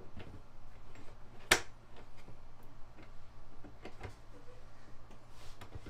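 Metal concealed cabinet hinges clicking and tapping as a cabinet door is fitted and adjusted, with one sharp, loud click about a second and a half in.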